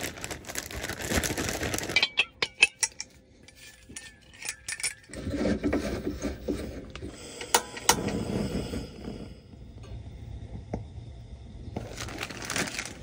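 A plastic zip-top bag rustling for about two seconds as fish is shaken in batter, then a run of sharp metal clicks and clinks as a propane camp stove and its cylinder are handled and set up.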